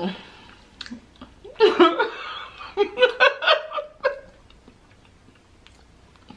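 A woman laughing, a run of short bursts between about one and a half and four seconds in.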